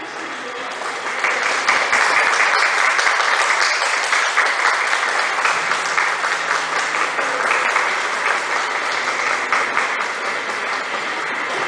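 Crumpled-paper skirt rustling and crackling as the dancer spins and crouches, a continuous crinkling crackle that swells about a second in and stays loud.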